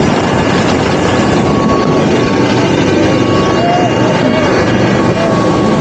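Military helicopter running, heard at the open cabin door: a loud, unbroken rotor and engine noise with a steady whine on top.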